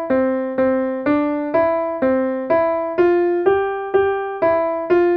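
Piano-like keyboard melody: notes struck about twice a second, each fading before the next, sounding two pitches at once. It is played as the fine structure of a musical sound in a hearing demonstration.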